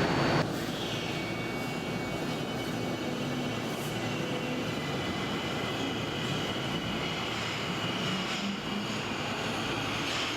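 Electric train running, a steady rumble with a faint high whine held throughout.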